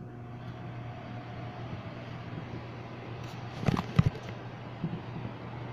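Microwave oven running with a steady low hum while heating a marshmallow, with a brief clatter of a few knocks a little before the middle.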